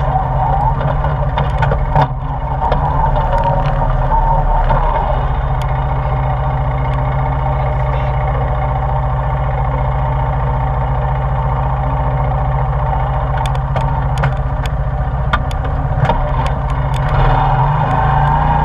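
ATV engine running at a steady, even pace while the machine travels a rough dirt trail, with scattered sharp clicks and knocks that bunch up late in the stretch.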